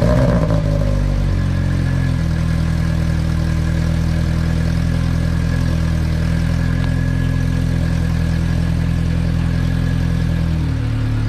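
Lotus Exige's Toyota 1.8-litre four-cylinder engine, just started through a newly fitted exhaust header, running while it is checked for exhaust leaks. It settles from a brief higher idle in the first second or so to a steady idle, and the note shifts slightly near the end.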